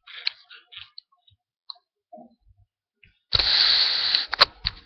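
Toy remote-control car being handled with light clicks, then its motor and wheels running in a loud whirring burst of about a second that stops suddenly, followed by two sharp clicks.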